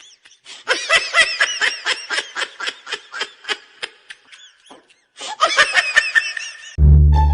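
A person laughing hard in fast, high-pitched pulses, two bouts with a short break between them. Near the end, music with plucked strings starts.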